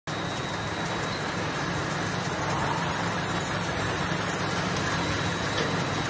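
Automatic bottle-filling line running: a steady mechanical hum and whir with a faint constant high whine.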